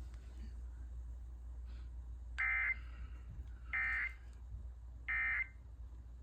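Emergency Alert System end-of-message signal: three short, identical bursts of buzzy SAME digital data tone, a little over a second apart, marking the end of the alert. A steady low hum from the radio feed runs underneath.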